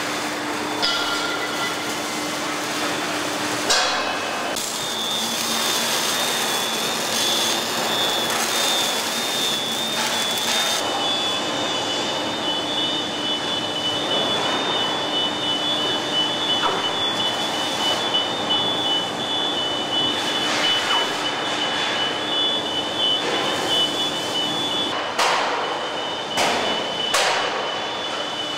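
Assembly-plant ambience in a bus body shop: steady machinery noise with a constant high whine and a low hum, with a few sharp metal knocks, one about four seconds in and a couple near the end.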